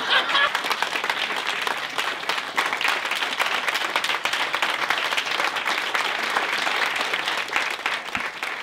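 Audience applauding: a sustained round of many hands clapping, beginning to die away near the end.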